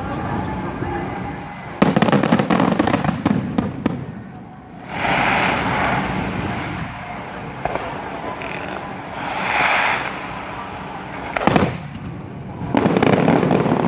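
Fireworks show: aerial shells bursting and crackling in volleys, with a dense crackling barrage about two seconds in and another near the end.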